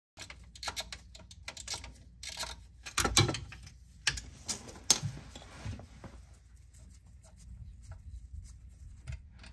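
Ratchet clicking through long socket extensions while a 13 mm oil filter housing bolt is worked out from below, with sharp metal knocks of the tools, the loudest about three and five seconds in. The clicking thins out after about six seconds.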